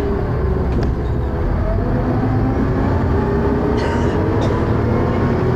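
Dennis Arrow double-decker bus engine and ZF automatic gearbox heard from on board while under way: a steady low rumble with a high-pitched whine that drifts slowly in pitch, and a few short rattles. The whine is the kind of strange high-pitched noise the bus is known for, alongside its slipping ZF gearbox and heavy thrash.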